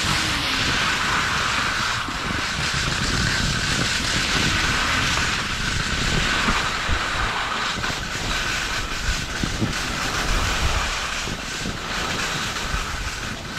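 Wind buffeting the microphone with a continuous hiss of skis sliding and turning on snow during a downhill run on touring skis.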